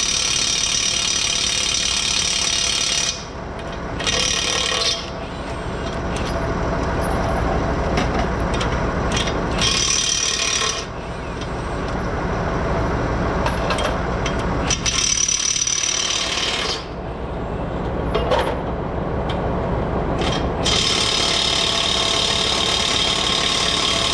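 Grease gun being worked on a hay baler's grease fittings: a loud mechanical rattle that stops and starts again several times.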